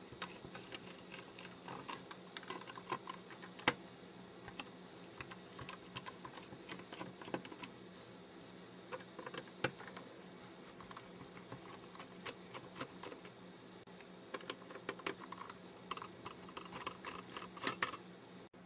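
Precision screwdriver backing out the tiny screws that hold the metal frame of a disassembled Canon PowerShot SX60 HS camera: light, irregular clicks and ticks of the tip on the screw heads and sheet metal.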